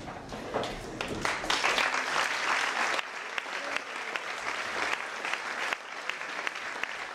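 Audience applauding, swelling about a second in to its loudest, then going on a little quieter.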